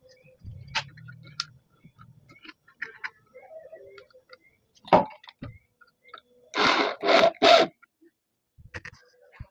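Scattered clicks and knocks of tools and the lathe's electric motor being handled, with three short, loud noises in quick succession about seven seconds in.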